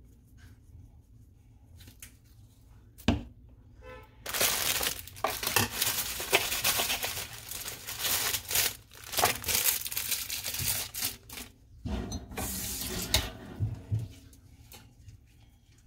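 Rustling and crinkling as a bunch of fresh coriander (cilantro) is handled, in two long spells, with a sharp tap about three seconds in.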